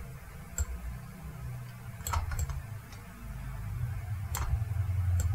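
A handful of light, separate computer clicks, about five spread over several seconds, over a low hum that grows louder in the second half.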